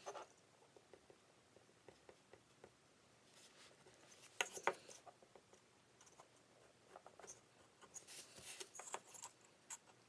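Faint scratching and light ticks of a mechanical pencil drawing feather lines on a basswood bird carving, with two sharper clicks about halfway through and a run of short strokes near the end.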